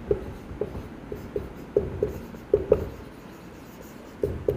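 Marker pen squeaking on a whiteboard as a word is written, a string of short, irregular squeaks, one for each stroke.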